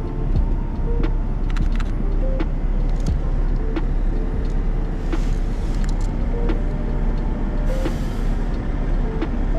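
Busy city street: a steady rumble of traffic, with scattered clicks and a melody of short notes over it.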